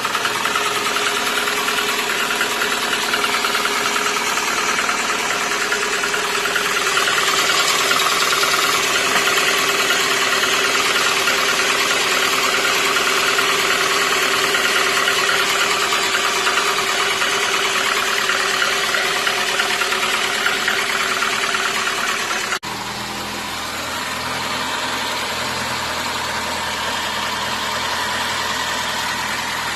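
VAZ 2115 inline-four petrol engine idling steadily after a rebuild with a bored block and new pistons, running quietly without the earlier piston knock. About three-quarters of the way through the sound cuts abruptly, and afterwards it is somewhat quieter with more low rumble.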